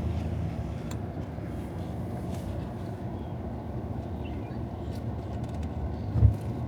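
Steady low rumble of a vehicle driving, road and engine noise, with a single thump about six seconds in.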